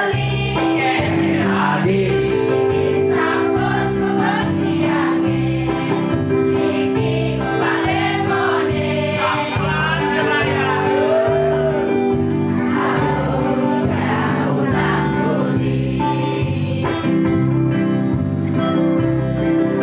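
A small live band plays a Balinese pop song on electronic keyboard and guitar, with sustained chords over a steady bass line and voices singing the melody.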